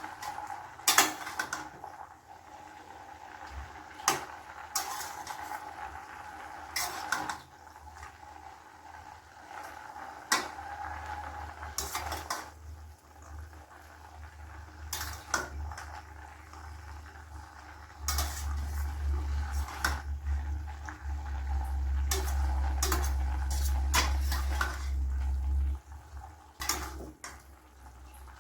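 A spoon stirring cabbage in a pan, clinking and scraping against it at irregular intervals, over a steady cooking hiss. A low rumble comes in for several seconds past the middle.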